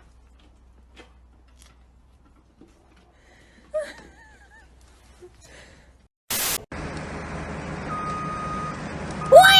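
A cat gives a loud meow that falls in pitch near the end, over a steady hiss that begins a few seconds earlier after a brief burst of noise. Before that there are only faint clicks and one short wavering whine.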